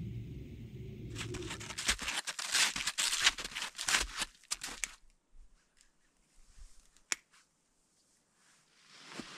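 Snowshoes crunching on packed snow in a quick run of crisp steps, thinning to a few scattered crunches and clicks, then almost nothing. The first second is a low steady rumble.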